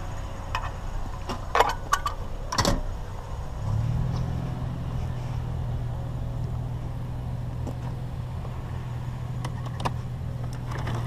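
A few sharp clinks and knocks of small items being handled and sorted, then a steady low engine hum, a vehicle running, that comes in about three and a half seconds in and holds steady.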